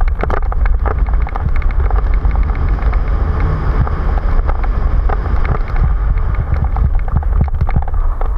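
Mountain bike rolling fast down a dirt and gravel trail: a steady rumble of wind buffeting the camera microphone, tyre noise on loose gravel, and frequent sharp rattles and knocks from the bike over bumps.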